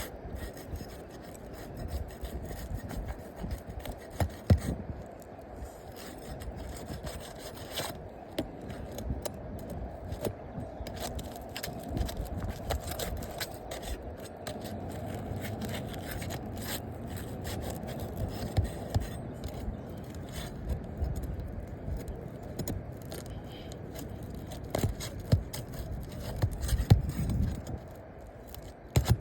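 Asphalt roof shingles being pried and worked loose: continuous scraping and rubbing, broken by many short sharp knocks.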